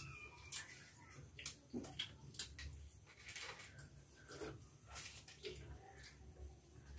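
Faint, scattered sounds of people eating and drinking: small stainless-steel bowls clinking and tea being sipped from them, a few short soft clicks over a low steady hum.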